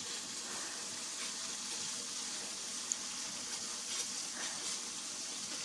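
Chili paste for sambal sizzling steadily as it fries in oil in a wok, with a few faint scrapes of the spatula stirring it.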